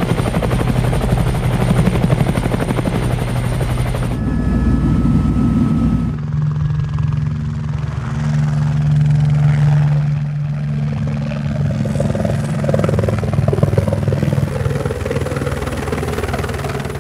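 Helicopter flying: a rapid rotor beat over a steady engine drone. The sound changes character about four seconds in and again about six seconds in, turning smoother and steadier.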